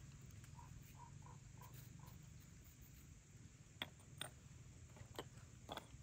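Near silence with a faint low hum. Four soft, evenly spaced short notes come near the start, then four light clicks in the second half as small ceramic spice jars are handled and set down.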